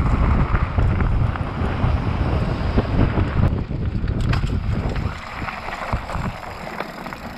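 Wind buffeting the microphone over a mountain bike rattling down a rough trail, a dense rumble with many small knocks and clatters that eases somewhat after about five seconds.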